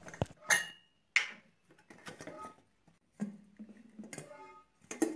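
Stainless-steel pressure cooker being handled once its pressure has dropped after cooking: the whistle weight is lifted and the lid worked, giving a series of short metal clicks and clinks, a few of them ringing briefly.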